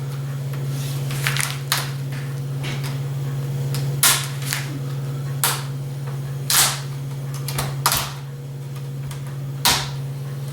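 Plastic clips of an HP DV6 laptop's screen bezel popping loose one after another as the bezel is pried off by hand: irregular sharp clicks and snaps, about seven loud ones, over a steady low hum.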